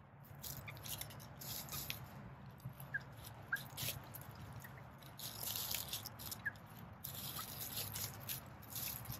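Faint rustling and crackling of dry leaves and pine needles in short bursts as young chickens shift and scratch in them, with a few brief high peeps.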